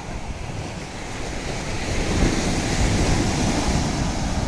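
Ocean surf breaking on a sandy beach, the wash swelling as a wave builds and crashes about halfway through, then easing. Wind buffets the microphone.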